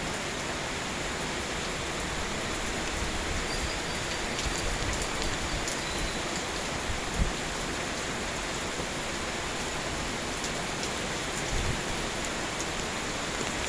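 Steady rainfall, an even hiss, with occasional faint ticks of nearby droplets.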